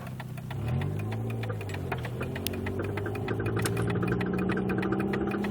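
Car pulling away, its engine note rising about a second in, with a rapid run of clicks from the worn right-side CV axle joint: the telltale sign of a bad CV axle.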